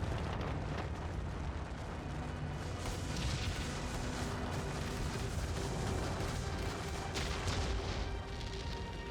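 Building implosion: a deep, steady rumble with several sharp blasts, under background music.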